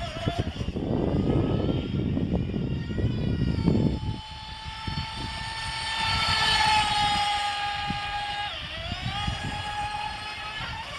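RC boat's small electric motor whining at a steady high pitch, briefly dropping and rising again near the end. It follows a few seconds of rough rushing noise.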